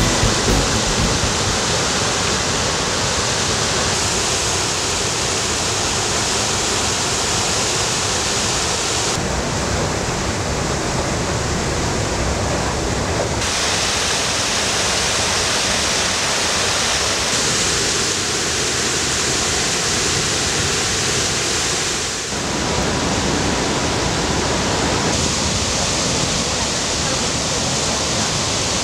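River water rushing over low weirs: a steady, loud rush whose tone shifts abruptly several times.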